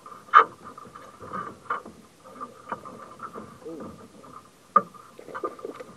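Sharp knocks and small clattering as a fish is landed with a landing net in a small boat, the loudest knock about half a second in and another just before the five-second mark, with quiet voices between.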